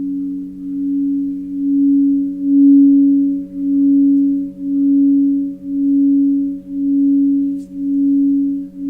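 Singing bowls sounding in a long sustained drone: a steady low tone with a second, louder tone above it that swells and fades about once a second.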